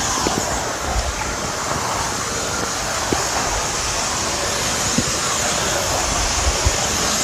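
Hoover Steam Complete Pet steam mop hissing steadily, set high and putting out a heavy flow of steam, with a few light knocks.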